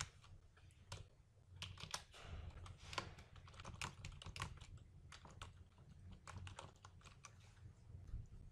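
Faint typing on a computer keyboard: irregular, quick key clicks, over a low steady hum.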